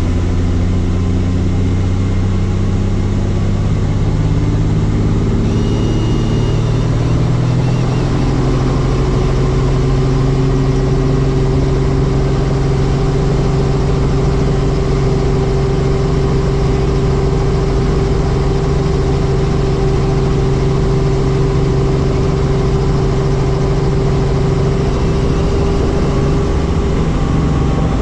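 Helicopter turbine and rotor running loud and steady, the pitch rising over the first several seconds and then holding.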